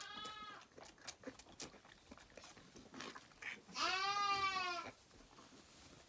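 Zwartbles lambs bleating: a short bleat right at the start and a longer, louder bleat about four seconds in, with light clicks in between.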